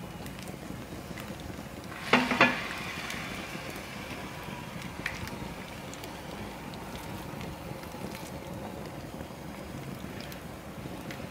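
Steady hiss of a wood fire burning in an open hearth and beef frying in an iron pan hung over it, with a few faint crackles. Two sharp knocks come about two seconds in.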